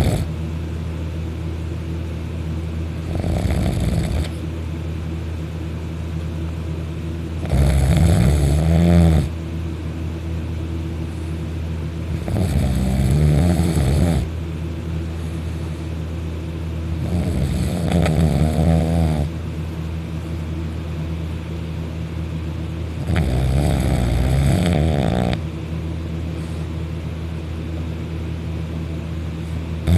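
Loud snoring from a deeply asleep sleeper: five snores about five seconds apart, each lasting one to two seconds. A steady low hum runs between them.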